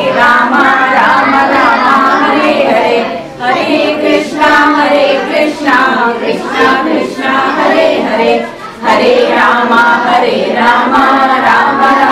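A group of children and women singing a prayer together in chorus, with short breaks between lines.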